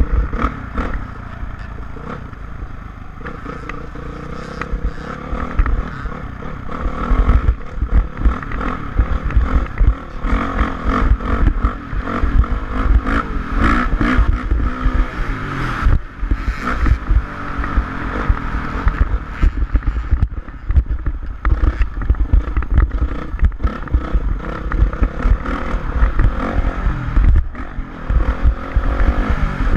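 Single-cylinder four-stroke engine of a 2006 Honda CRF450R motocross bike revving up and down as it is ridden, with heavy wind buffeting and clatter on the mounted action camera's microphone.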